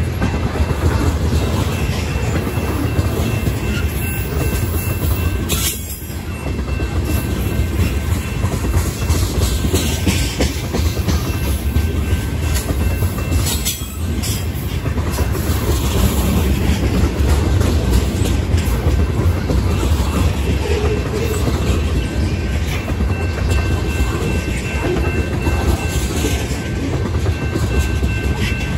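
Freight train cars, mostly loaded tank cars, rolling past at close range: a steady low rumble of steel wheels on rail with a clickety-clack over the rail joints. Two short dips in loudness come about 6 and 14 seconds in, and a faint steady high whine comes and goes.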